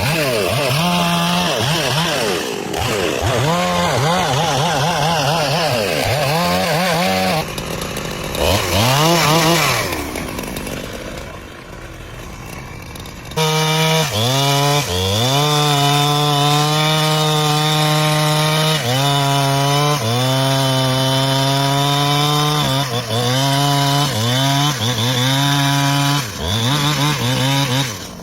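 Chainsaw revving up and down over and over. After a sudden change about halfway through, it runs at high speed with brief dips in pitch while cutting wood.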